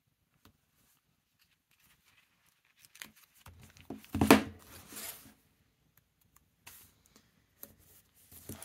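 Paper handling from a sticker book: faint peeling and tapping, then from about three seconds in a spell of paper rustling and sliding as the book is moved across the table, loudest around four seconds in. Light taps and presses follow as a sticker is pressed onto a notebook page.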